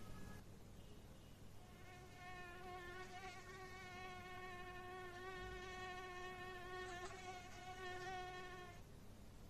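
Faint, high-pitched buzzing whine of a mosquito in flight. The tone is steady with a slight waver; it starts about a second and a half in and stops shortly before the end.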